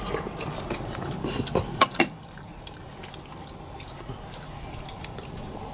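Bowls and eating utensils clinking at a table where people are eating, with three sharp knocks close together about two seconds in, over a steady low room background.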